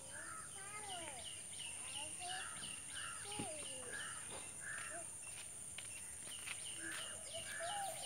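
Rural outdoor ambience: birds calling again and again over a steady high-pitched hum.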